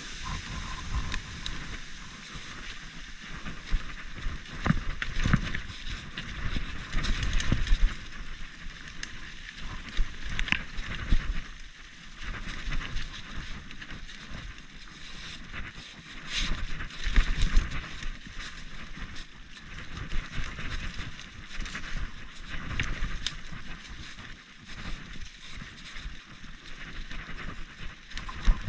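Mountain bike ridden along a dirt singletrack: continuous tyre and trail noise with frequent rattles, clicks and knocks from the bike over bumps, and low gusts of wind on the microphone.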